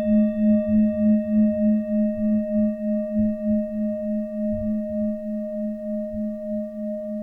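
A sustained singing-bowl-style meditation tone. A low hum pulses about three times a second under steadier higher ringing tones, and the highest of these fade over the first few seconds.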